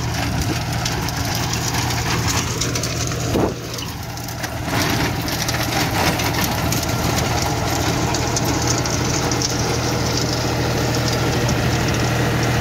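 John Deere 5045 D PowerPro tractor's three-cylinder diesel engine running steadily under load while pulling a Sonalika rotavator through hard, dry soil, with the rotavator churning the ground. The engine holds its revs without strain.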